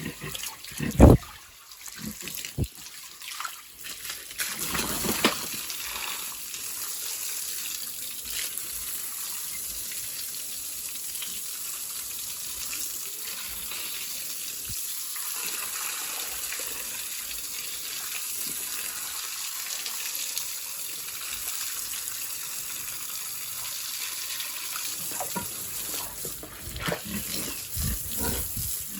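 Steady hiss of running, spraying water used to wash down a pig pen, with a few sharp knocks about a second in and again near the end.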